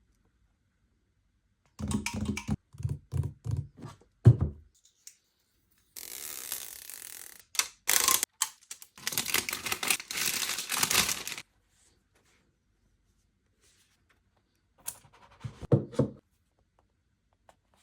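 Perfume packaging being unboxed by hand: a run of knocks and bumps as the box is handled, then several seconds of tearing and crinkling as the wrapping is torn open, and a few more handling knocks near the end.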